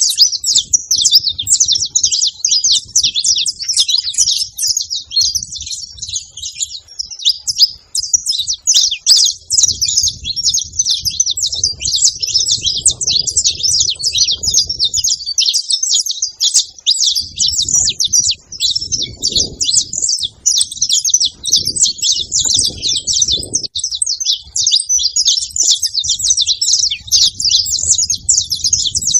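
Many saffron finches chirping and singing at once, a dense unbroken chatter of overlapping high calls.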